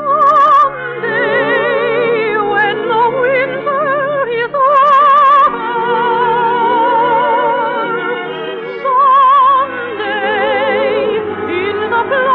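A soprano singing in operatic style with wide vibrato over musical accompaniment, holding loud high notes about five seconds in and again about nine seconds in.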